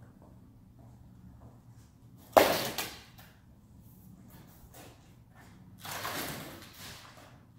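Large thin plastic sheets being handled: a sharp slap of a sheet about two and a half seconds in, with a smaller one just after, then a rustling swish of a flexing sheet around six seconds. Under it runs the low steady hum of the roller machine.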